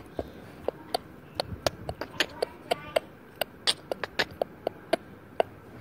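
Irregular sharp clicks and taps, several a second, with faint bits of a voice among them.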